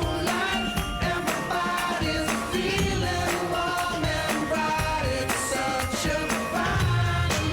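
Background music: a pop song with a steady beat and singing.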